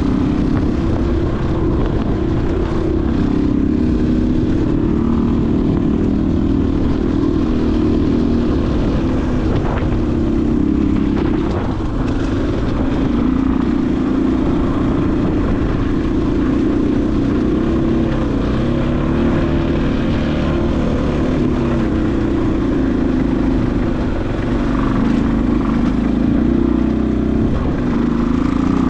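Vehicle engine running steadily at low speed, its pitch wavering up and down with the throttle, over a low rumble.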